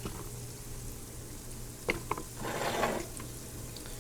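Chicken fat rendering in a pot, sizzling faintly, its water cooked out and cracklings starting to form. There are two light clinks of kitchen utensils about two seconds in and a brief louder swell of sizzle just after.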